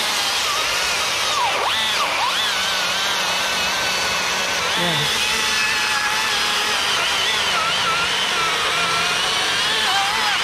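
Chainsaw running under load as it cuts through a dead fir trunk, its pitch wavering through the cut and dipping sharply twice about one and a half to two seconds in.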